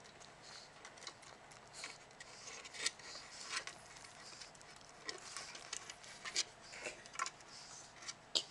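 Dogs snapping up food crumbs from a wooden table top, their claws scraping and tapping on the table edge: an irregular run of short clicks and scrapes, the sharpest one near the end.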